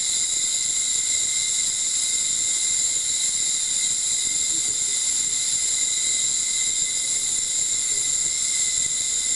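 Ultrasonic treatment unit running steadily while it dissolves paraffin wax: an even high hiss with several thin, steady whining tones, the highest the strongest.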